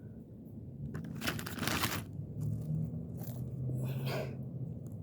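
Scraping and crunching of hands gathering loose screws and nails off gritty pavement, loudest in a scrape lasting nearly a second, followed by a couple of shorter ones.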